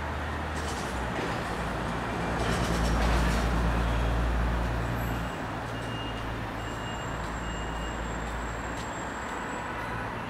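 City road traffic passing steadily, with a heavy vehicle's engine rumbling loudest from about two to five seconds in, then dropping away.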